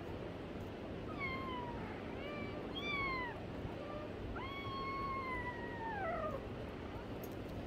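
A kitten meowing: about four high meows that fall in pitch, the last one drawn out for nearly two seconds.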